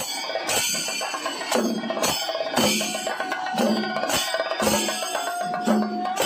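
Rhythmic percussion music: a run of sharp drum strokes, with a long held note coming in about halfway that rises slightly toward the end.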